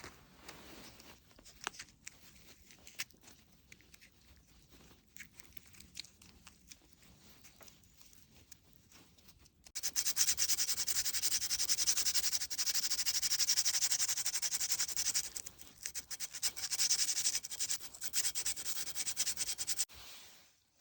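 Hand abrasion of a forged steel hook-knife blade: a few faint scrapes and ticks, then about halfway in a long run of rapid, even rubbing strokes of steel against an abrasive, which stops just before the end.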